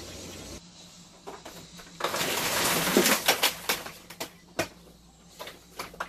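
Hoover Elite Rewind upright vacuum's cord rewind reeling in the power cord: a loud rushing whir of about two seconds, starting about two seconds in, ending in a few sharp clacks as the plug reaches the vacuum body. Scattered light knocks follow.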